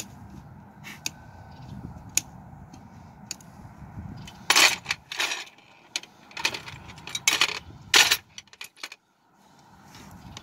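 Metal clinking of a farrier's hand tools and a steel horseshoe at the shoeing tool box: a few light, sharp clicks, then a cluster of louder clanks around the middle.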